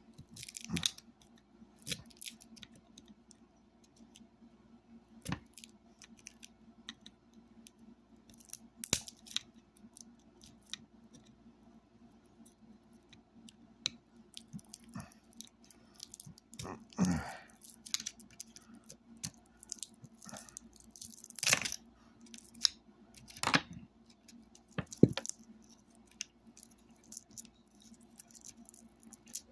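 Scattered clicks, scrapes and short tearing sounds of hand work on a speaker's transformer, peeling back its wrapping to get at the copper winding.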